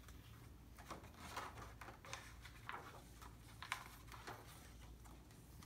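Faint rustling and light taps of a picture book being opened and its paper pages turned, with one sharper tap a little past the middle.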